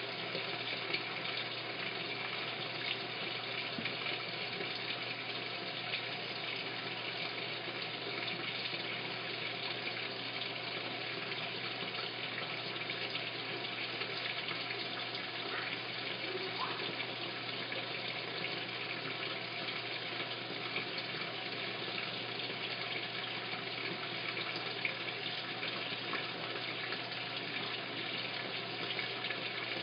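Washing machine filling with water: a steady rush of water pouring into the drum, with a low steady hum underneath.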